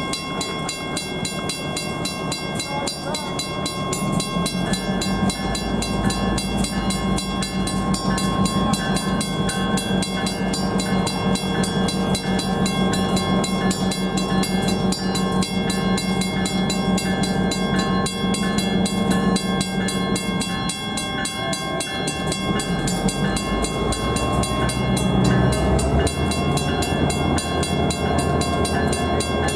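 EMD GP10 diesel locomotive running slowly close by, a steady engine hum that shifts about twenty seconds in and grows louder a few seconds later. A grade-crossing bell rings rapidly over it.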